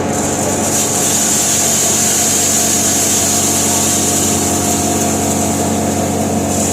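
A maize-grinding hammer mill runs steadily with a constant machine hum. A high hiss comes in at the start and strengthens about a second in as grain is fed through and ground.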